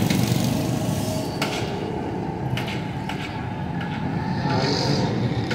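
Busy street ambience: a steady low traffic rumble, broken by a few sharp knocks and clicks.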